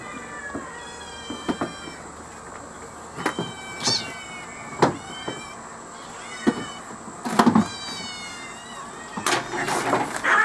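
A crowd of hungry kittens meowing over one another, high, short mews repeated again and again, with sharp knocks and clatter among them and a burst of rustling near the end.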